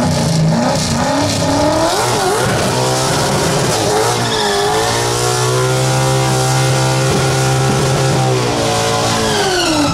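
Fox-body Ford Mustang drag car doing a burnout: the engine revs up and is held high while the spinning rear tyres squeal and hiss against the track, with the revs dropping away near the end.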